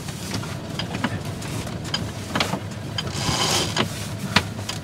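Sailing yacht under way through a tack: steady wind and water noise, with a few scattered clicks and knocks from the sheet winch and deck gear as the sheet is worked, and a brief rush of noise about three seconds in.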